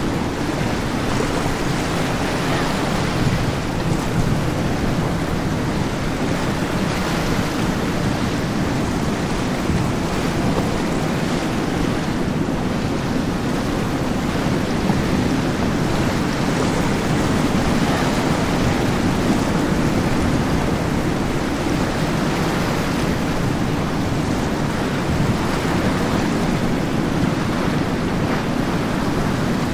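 Steady rush of waves and churning boat wake, with wind buffeting the microphone.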